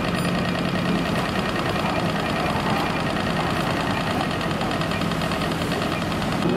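Tram rolling slowly past close by: a steady rumble of its motors and wheels on the rails with a low hum.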